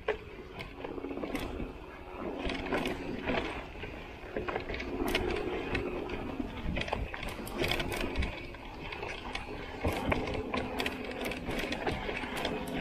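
Mountain bike coasting down a rocky trail: the rear freewheel hub buzzes steadily while the tyres, chain and frame clatter over loose stones with frequent sharp knocks.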